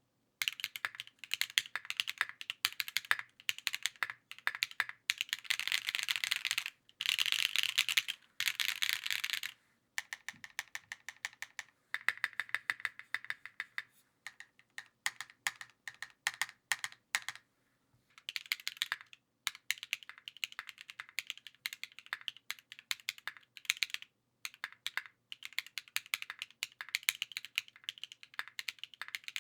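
Typing on a Cycle7 custom mechanical keyboard with an aluminium plate: a continuous stream of keystroke clacks, broken by brief pauses, with a few runs of very fast, dense typing partway through.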